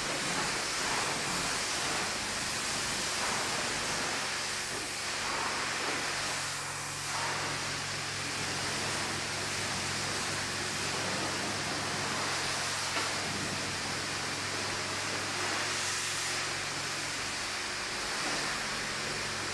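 High-pressure car wash wand spraying water onto a car body, a steady hiss, over a steady low hum.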